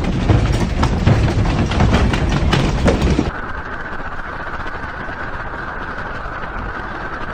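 Objects on a desk rattling and knocking as a room shakes in an earthquake, over a low rumble. About three seconds in this cuts off to a quieter, steady noise with a faint steady tone.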